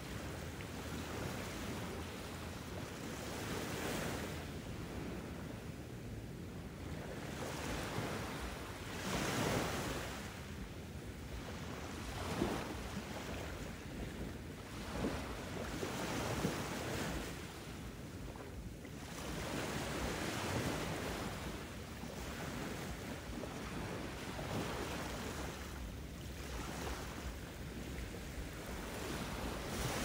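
Ocean surf: waves rushing in and washing out, the noise swelling and easing every few seconds.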